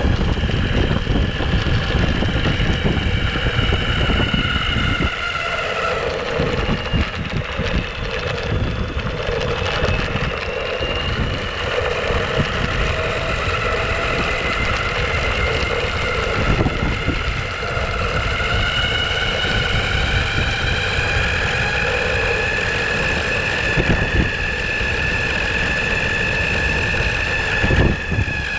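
Onsra Black Carve belt-drive electric skateboard riding along: the motors and belts whine in several tones that slowly rise and fall in pitch with speed, over a steady low rumble of wind on the microphone and wheels on the road.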